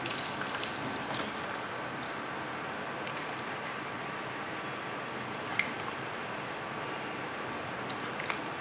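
Water boiling in a pan as soaked rice is stirred in: a steady bubbling hiss, with a few light clicks of the slotted spoon against the nonstick pan.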